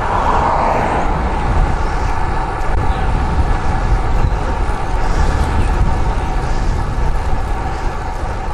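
Wind buffeting the camera microphone and steady rolling noise while riding a road bike.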